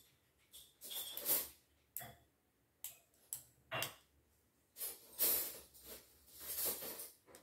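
Plastic LEGO pieces being handled, rattling and clicking in short, irregular bursts about a second apart.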